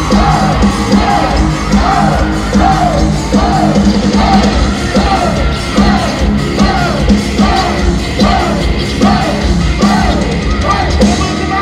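Live pop-rock band music with a steady beat and rhythmic shouted vocals repeating about twice a second, loud and full.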